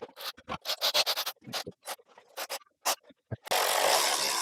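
Metal engine parts being handled: a quick run of small clicks and scrapes as the rear main seal housing and its bolts are set in place. Near the end comes a steady rushing noise lasting over a second, the loudest sound of all.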